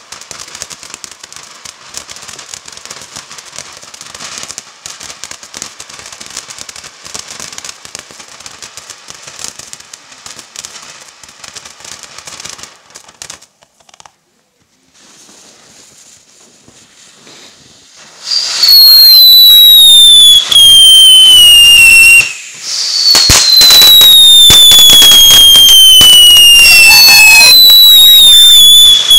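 Ground firework fountain fizzing and crackling as it sprays sparks, dying away about 13 s in. After a short lull a second fountain lights and gives loud whistles that fall in pitch, each about three seconds long, three in a row.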